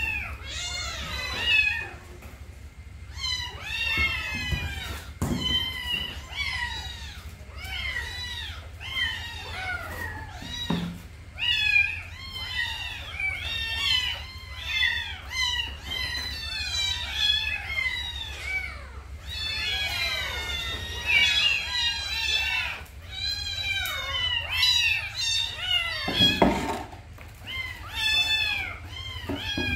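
Several kittens meowing at once, a continuous chorus of high-pitched, overlapping cries, each rising and then falling in pitch. A steady low hum runs underneath, with a few dull bumps, the strongest near the end.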